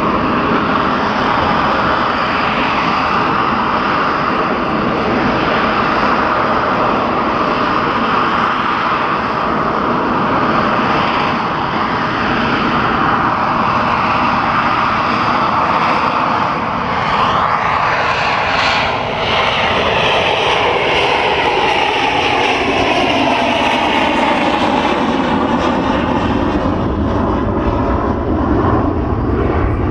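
Loud, steady engine noise of a display aircraft flying past, its pitch falling through the second half as it passes and draws away.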